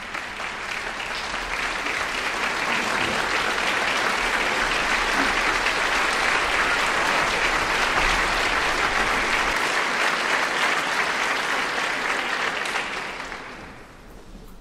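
Audience applauding: the clapping builds over the first few seconds, holds steady, then fades out near the end.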